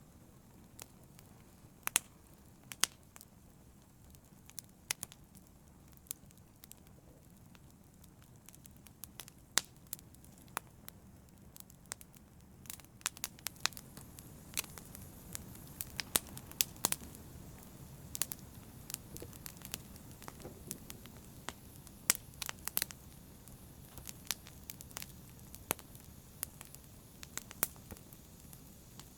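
Wood fire crackling: irregular sharp pops and snaps over a low steady rumble of burning, busier and a little louder in the second half.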